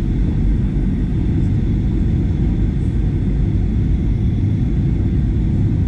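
Steady low cabin rumble of a Boeing 737-800 descending on approach, engine and airflow noise heard from inside the cabin, with a faint high whine on top.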